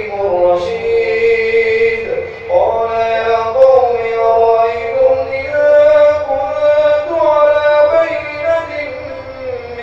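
A man reciting the Quran in the drawn-out, melodic tajweed style of a Taraweeh imam. One voice holds long notes with ornamented turns in pitch, pausing briefly for breath about two seconds in.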